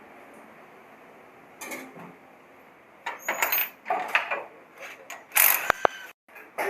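Hand tools clicking and rattling against metal motorcycle drive parts while a sprocket is being changed, with a single loud clank about five seconds in.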